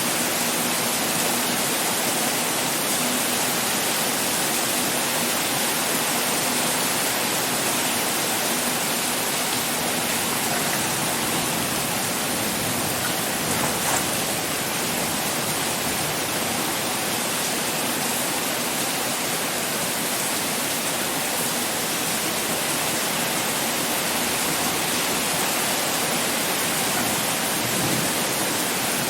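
Heavy rain pouring in a steady, even hiss, with one faint tick about halfway through.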